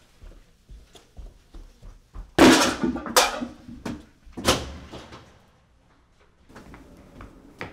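Three loud bangs, about two and a half, three and four and a half seconds in, each with a short ringing tail, among lighter knocks.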